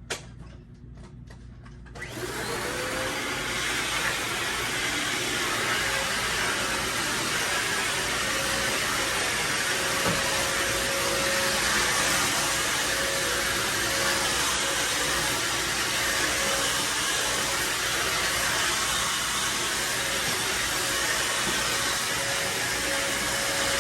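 A single click at the very start, then a vacuum cleaner switched on about two seconds in, its motor spinning up and running steadily with a faint steady whine.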